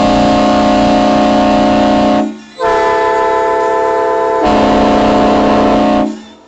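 Tugboat horns sounding long, steady blasts, each a chord of several held tones: one blast of over two seconds, a short break, then a longer blast whose chord changes partway through and stops about six seconds in.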